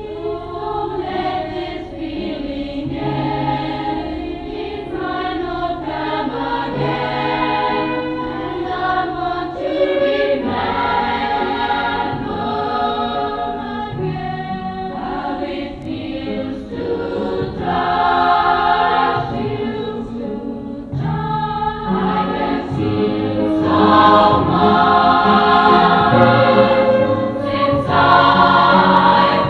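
A choir singing several voice parts together, growing louder over the last few seconds.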